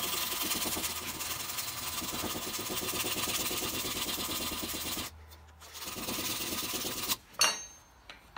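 Sandpaper rubbed by hand along hardwood handle blanks in rapid back-and-forth strokes. The strokes stop about five seconds in, start again after a short pause, and end in a brief, loud knock.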